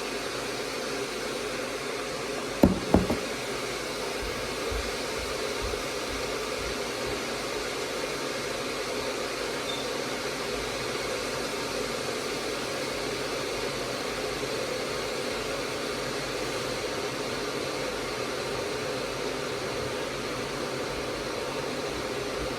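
Steady, even whooshing noise like a fan or kitchen appliance running, with two sharp knocks close together about three seconds in.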